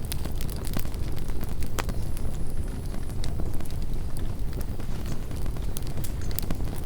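Wind buffeting the microphone as a steady low rumble, with scattered sharp crackles and clicks over it.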